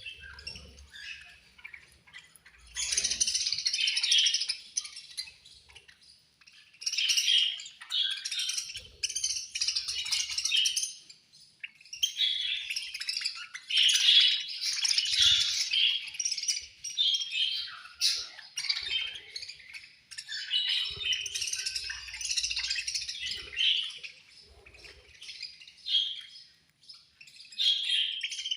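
Budgerigars chirping in busy bursts of a few seconds at a time, with short lulls between.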